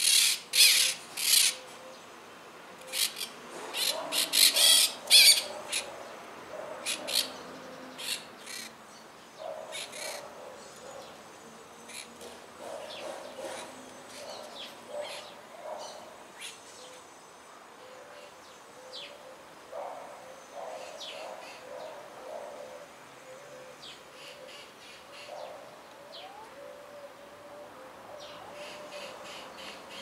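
Peach-fronted parakeets calling: bursts of short, shrill calls, loudest and most frequent in the first eight seconds or so, then scattered fainter calls and chatter.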